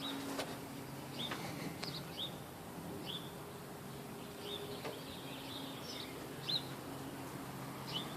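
A small bird chirping repeatedly: short high notes, each with a quick bend in pitch, coming every half second to a second, over a faint low hum.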